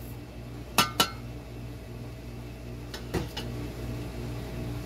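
Metal spatula clinking against a stainless steel bowl and the steel plow-disc wok while the last pieces of cabbage are knocked off: two sharp clinks about a second in, then a few more around three seconds, over a steady low hum.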